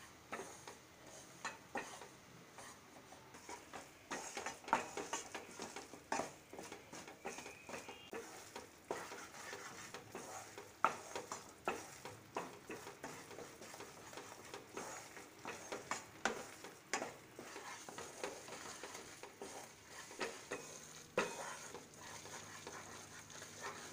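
Wooden spatula stirring and scraping gram flour roasting in ghee in a non-stick pan, with irregular taps and scrapes against the pan and a faint steady sizzle of the frying underneath.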